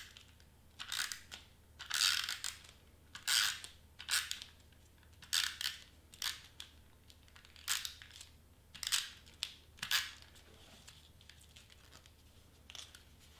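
Tombow adhesive tape runner drawn in short passes across cardstock, each pass a brief scratchy sound, about a dozen of them roughly a second apart, thinning out after about ten seconds.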